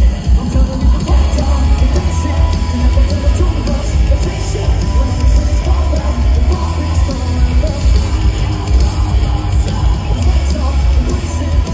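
Heavy rock band playing live, loud and bass-heavy: electric guitars, drums and a singer's shouted vocals, as heard from within the crowd.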